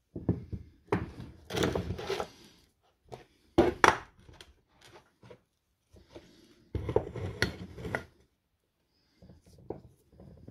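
Handling noise from an opened battery pack's plastic cell holder and a spot-welder box being moved and set down on a wooden workbench: knocks, clatter and scraping in three main bursts, with a fainter one near the end.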